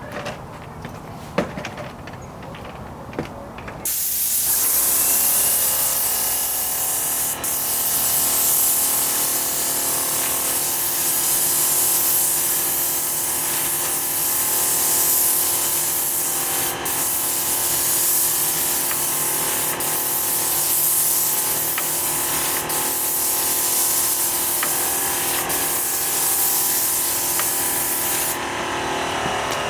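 Paint sprayer spraying: a loud, steady hiss of paint spray over the even hum of its running motor. It starts about four seconds in after a few clicks and knocks. Near the end the hiss cuts off and the hum dies away.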